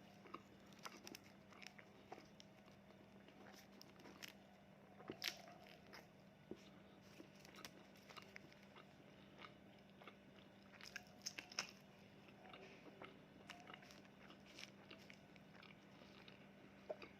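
Close-miked eating: faint, scattered crunchy bites and chewing clicks, with a few louder crunches about five seconds in and again around eleven seconds. A faint steady hum runs underneath.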